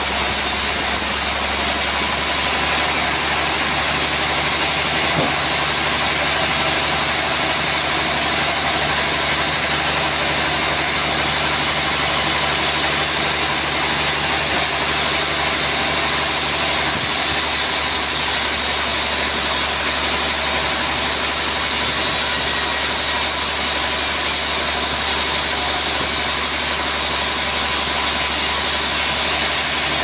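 Band sawmill running steadily, its band blade sawing through a trembesi (rain tree) log over the constant drone of the mill's drive. The hiss of the cut gets brighter about halfway through.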